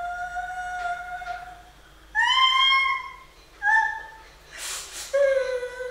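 A young woman crying: a string of high, drawn-out wailing sobs. The first is long and level, followed by shorter, louder cries that rise or fall, with a noisy breath between them.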